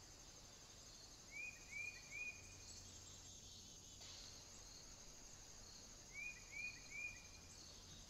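Faint, steady, high-pitched chirping of insects in the background. Twice, a bird gives a quick run of three short, clear notes, each rising and then dropping.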